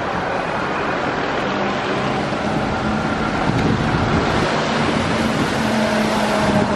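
City street traffic on a wet road: a steady hiss of tyres with passing engines, joined about a second and a half in by a low engine hum that grows a little louder toward the end as a double-decker bus passes close.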